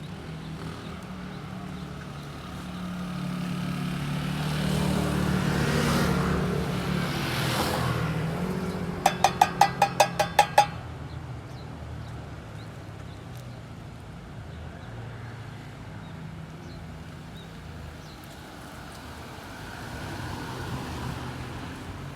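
A fire department vehicle drives past, its engine rising and then fading. About nine seconds in it gives a rapid burst of about nine short, loud horn blasts over a second and a half.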